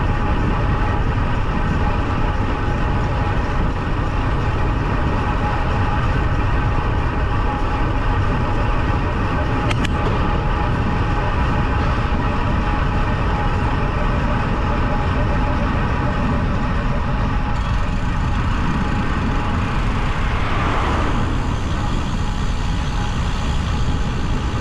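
Steady wind rushing over the microphone of a bike-mounted camera, together with road-bike tyres running on tarmac.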